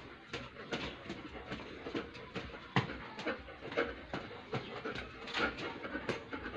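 A dog panting in short breaths, about two or three a second, with faint whimpering, while the two dogs are mating.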